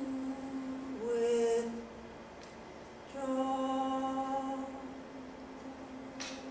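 A woman's unaccompanied voice singing long, wordless held notes: a low note, a short higher note about a second in, then a long low note from about three seconds in that fades away near the end.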